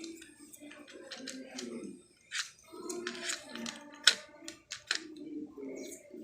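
Sharp clicks and scrapes of electrical wires and hand tools being handled during wire splicing, with a faint murmur of voices underneath.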